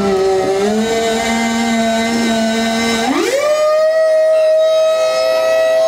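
Electric scissor lift's hydraulic pump motor whining steadily as the platform is raised from the bottom. About three seconds in, the whine rises smoothly to a higher pitch and holds there as the motor speeds up.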